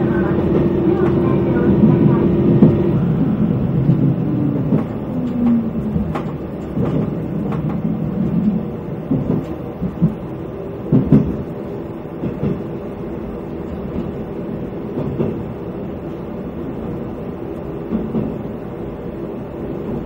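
KiHa 120 diesel railcar running along the line, heard from on board: a continuous engine and wheel rumble with a held tone that stops about three seconds in. Scattered wheel clacks over rail joints stand out around eleven seconds in, and the running sound eases after about twelve seconds.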